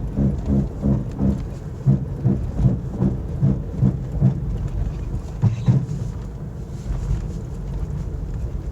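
Worn front wheel bearings on a moving car: a low rhythmic rumble pulsing with the turning of the wheel. The pulses come slower and fade out about six seconds in, leaving a steady low rumble.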